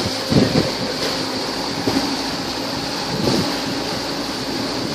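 Speedboat underway on twin Suzuki outboard motors, running steadily, with water rushing in the wake and wind on the microphone.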